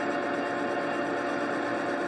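Boye & Emmes 16-inch lathe running steadily while turning a wheel spacer: an even machine hum with several held tones over a noisy background.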